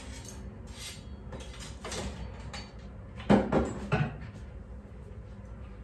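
Metal kitchen utensils clinking and clattering as they are put into a crowded utensil holder: a few light clinks, then two louder knocks a little past halfway.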